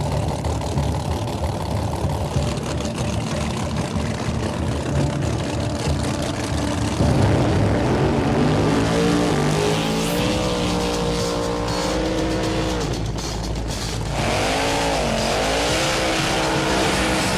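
Drag race car engines running, rough at first, then revving with the pitch rising and falling several times from about seven seconds in, and again near the end.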